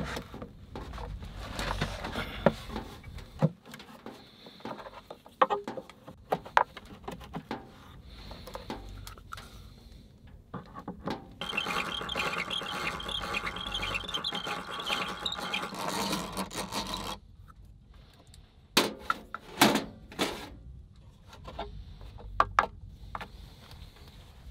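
A hand-cranked drill bores into a robe hook held in a wooden hand-screw clamp, a steady rattling whir lasting about six seconds in the middle. Before and after it come scattered clicks and knocks of tools and small pieces being handled on the bench.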